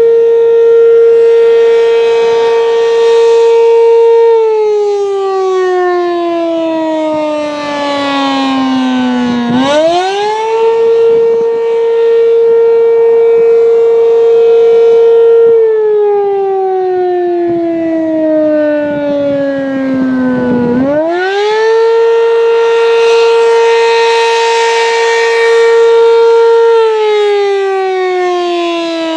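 ACA P-15 outdoor warning siren sounding the wailing Attack signal. The loud tone repeatedly climbs quickly, holds steady for about five seconds, then slowly falls. It falls twice and climbs twice, about ten and twenty seconds in.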